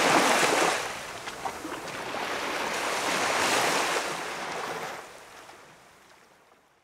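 Small waves washing onto a quiet beach: one surge of surf right at the start and another a few seconds later, then the sound fades away near the end.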